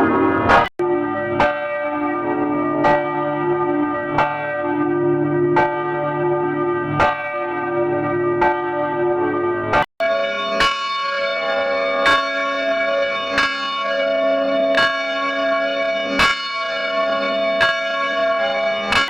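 Church bells tolling at a steady pace, about one stroke every second and a half, each stroke ringing on with many overtones. The sound cuts abruptly to a different bell recording twice, just under a second in and again about ten seconds in; the second recording is higher-pitched.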